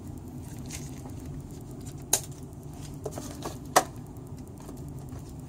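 A few short, sharp plastic clicks from a pipette tip being handled at an agarose gel casting tray, the two sharpest about two seconds in and near four seconds, over a steady low hum.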